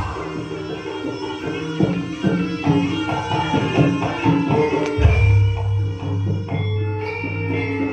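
Live Javanese jaranan dance music: hand-drum strokes over ringing, steady pitched tones, with a deep low tone that comes in about five seconds in and holds.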